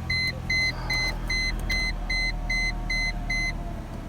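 Mercedes-Benz W202 C-Class warning chime beeping in a rapid even series, about two and a half beeps a second, stopping about three and a half seconds in, over a low steady hum.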